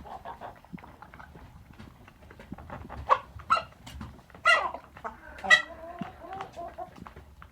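Chickens making short, squeaky sneeze-like sounds, four sharp ones between about three and six seconds in, over a bed of soft clicks and quiet calls.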